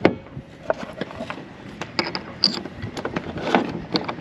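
Metal clinks and knocks of a shackle being fitted to the anchor chain and swivel: a sharp knock at the start, then scattered clicks, with a couple of short ringing clinks about two seconds in.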